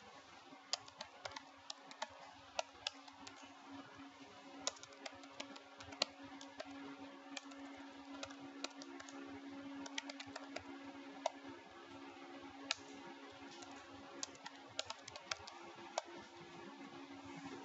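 Computer keyboard keys being typed, sharp irregular clicks in short runs, over a faint steady hum.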